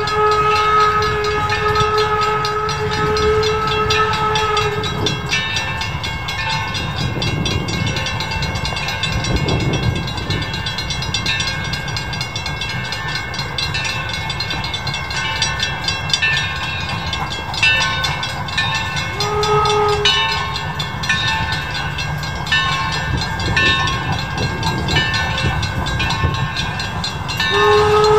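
Steam whistle of the Torch Lake, a Calumet & Hecla Mining Co. steam locomotive, blowing a steady chord for about five seconds, a short toot about twenty seconds in, and another long blast starting near the end, over the steady low rumble of the locomotive running.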